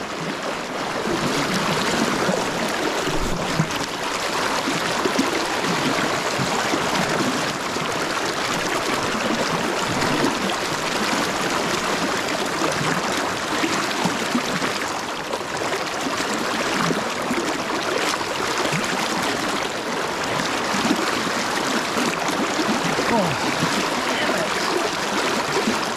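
Fast river current rushing and churning steadily, with whitewater splashing close to the microphone.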